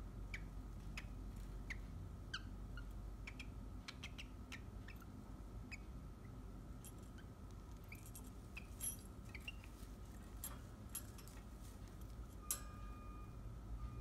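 Cockatiel making faint, scattered short chirps and clicks. Near the end come a few short, steady, beep-like tones.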